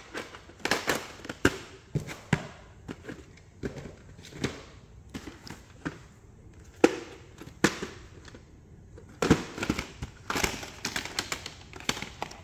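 Hard plastic VHS clamshell cases and cassettes being handled: irregular clicks, taps and clacks, with a few louder knocks.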